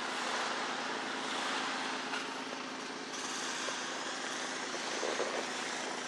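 Snowblower's small gas engine running steadily.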